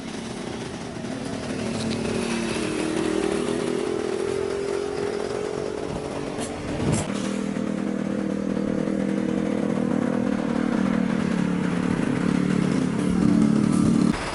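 Bus engine running under load, its pitch shifting up and down, with a single knock about seven seconds in. The sound grows louder near the end, then cuts off abruptly.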